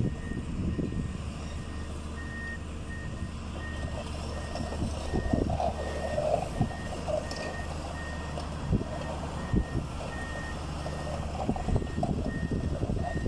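Reversing alarm beeping evenly, a little under twice a second, over a heavy diesel engine running steadily, with scattered knocks and clanks: a backhoe at work lifting a container house.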